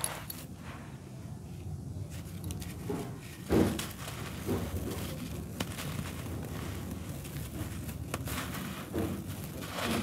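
Hands crumbling dry, grainy red dirt: a steady crunch and crackle of soil clumps breaking apart and grit pouring through the fingers, with a louder thump about three and a half seconds in.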